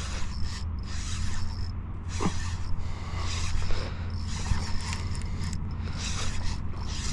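Fishing reel being cranked, its gears whirring and clicking in repeated turns as a hooked striped bass is reeled in.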